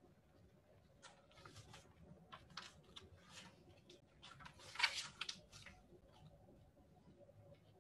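Faint rustling and shuffling of a person moving into place, a string of soft scuffs over quiet room tone, loudest about five seconds in.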